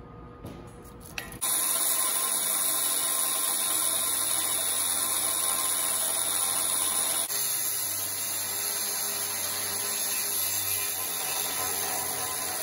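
Angle grinder with a cutoff wheel cutting through quarter-inch-wall, 6-inch steel pipe: a steady, loud grinding whine that starts about a second and a half in, after a few faint clicks.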